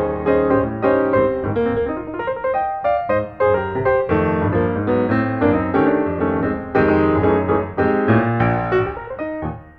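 Background piano music: a steady run of notes over low sustained chords.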